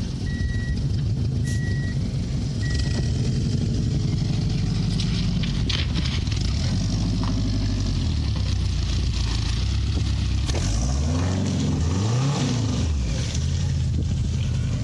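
Subaru 'truckaru' engine running, revving up and falling back twice near the end. A high electronic chime beeps about every second during the first few seconds.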